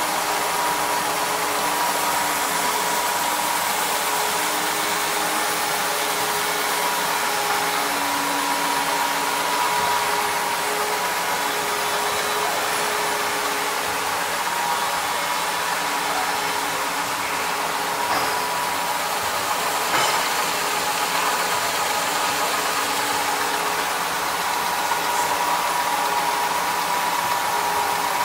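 DABA 320-B automatic folding and slitting machine running at speed: a steady whirring hiss with a held whine. A single faint click comes about twenty seconds in.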